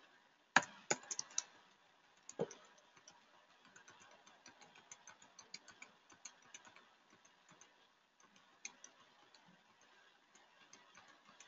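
Computer keyboard keys being tapped: a quick cluster of sharper clicks in the first second and a half, one more about two and a half seconds in, then faint scattered taps.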